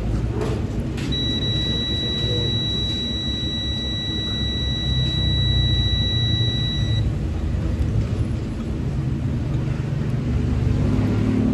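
Hyundai Reina's engine idling with a steady low rumble. About a second in, a high steady electronic beep starts and holds for about six seconds before cutting off.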